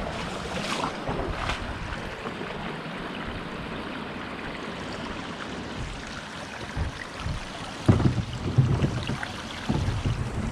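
Wind noise on the microphone over moving water, with a few low, uneven bumps in the last few seconds.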